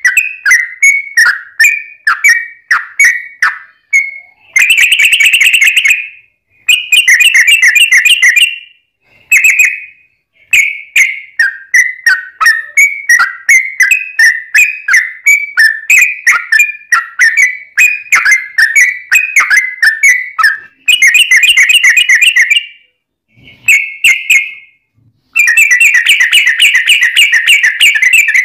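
Yellow-vented bulbul singing: runs of short, quick whistled notes broken by several fast, chattering trills of a second or two, the longest near the end.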